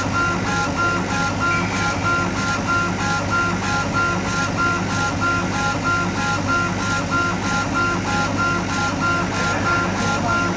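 Acctek AKJ6040 CO2 laser engraver raster-engraving MDF: the head's drive motors whine in a fast, even rhythm, the whine stopping and starting a few times a second as the head reverses at the end of each back-and-forth pass, over a steady low hum.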